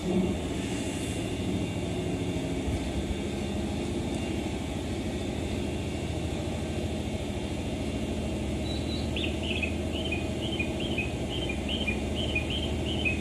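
Steady hum and rumble of a railway station platform, with a train standing at it. From about nine seconds in comes a regular run of short high chirps, about two a second.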